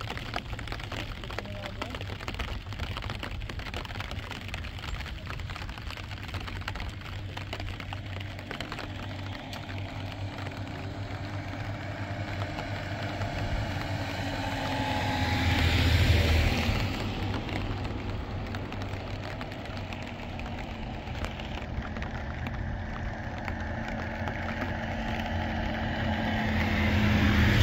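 Car engine and road noise while driving. It gets louder about halfway through and again at the end, with a low tone rising slowly in pitch.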